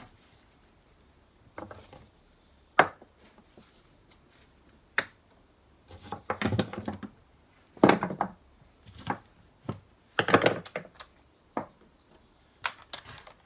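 Metal hand tools and gearbox parts being picked up and put down on a workbench: scattered clinks and knocks, single ones in the first few seconds and short bursts of clattering about six, eight and ten seconds in.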